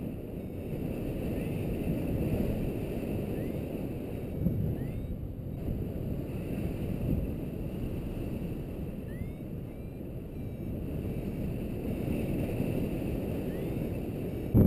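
Airflow buffeting the microphone of a pilot-mounted camera in paraglider flight: a steady low rush of wind noise.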